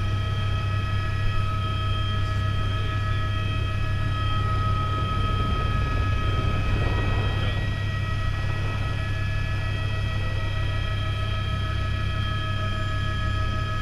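Helicopter cabin noise heard from inside the cockpit: a steady low rotor and engine drone with several steady high whining tones over it.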